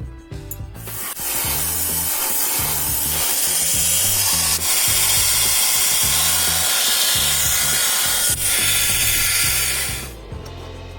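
A power tool grinding or cutting steel, a steady harsh noise that starts about a second in, breaks off twice very briefly, and stops about a second before the end. Background music with a repeating bass line plays throughout.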